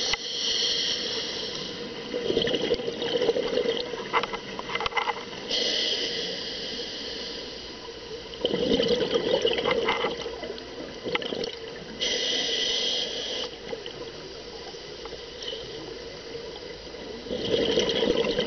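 Scuba diver breathing through a regulator underwater: a hiss on each inhale, then a louder bubbling rush of exhaled air, three breaths in all.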